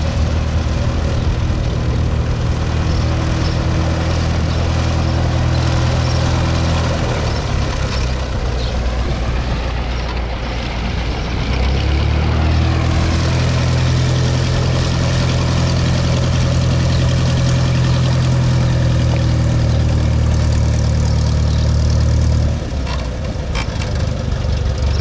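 Piston engine and propeller of a single-engine Cessna light aircraft running as it taxis. The engine is somewhat fainter while the plane is far off and grows louder as it comes close. Near the end the engine note drops to a lower, quieter running.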